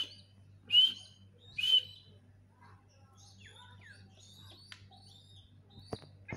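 Young francolin (teetar) chicks calling: three loud, sharp chirps about a second apart at the start, then softer, scattered chirps. They call repeatedly because they have been taken away from their parents.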